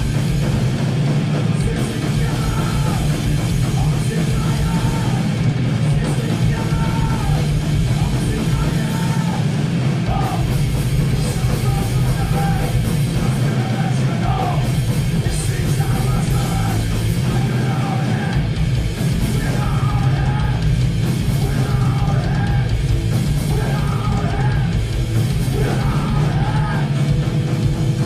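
Loud punk rock song: a full band with drums playing continuously under shouted vocals.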